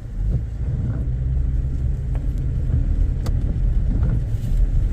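Steady low rumble of a car driving, with a few faint clicks.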